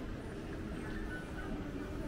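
Steady low rumble of city street background noise, like distant traffic.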